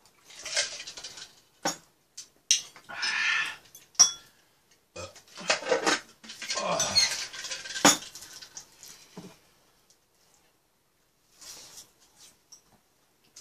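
Tableware clattering during a meal: chopsticks and a spoon knocking against bowls and plates, and a plastic drinking cup being handled. There are several sharp knocks, the loudest about 4 and 8 seconds in, and the sounds die down after about 9 seconds.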